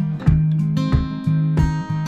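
Background music: a guitar playing over a steady beat.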